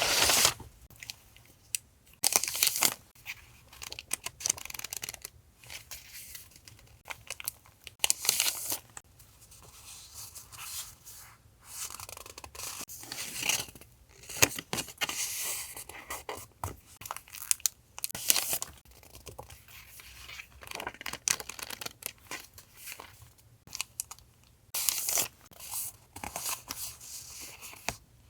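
Paper and packaging being handled and torn, in scattered rustling, ripping and crinkling bursts a second or two long. A faint steady low hum sits underneath.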